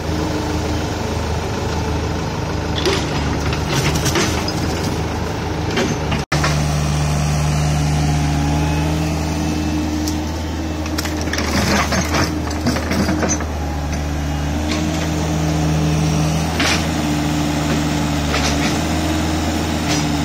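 Diesel engine of a Hitachi mini excavator running steadily, its pitch shifting a little as the hydraulics take load, with several thuds and rattles as buckets of cattle manure are dumped into a steel-sided trailer.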